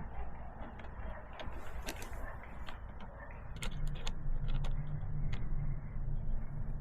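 Scattered light clicks and taps of metal parts being handled: an all-thread hinge pin and nuts being worked on a plastic toolbox. About halfway through, a low steady hum comes in.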